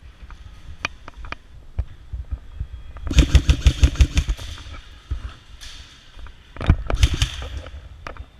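Airsoft guns firing: a few single shots, then two rapid full-auto bursts, about three and seven seconds in.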